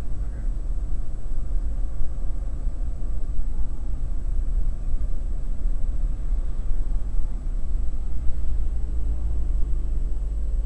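Car on the move, heard inside the cabin: a steady low rumble of engine and tyre noise.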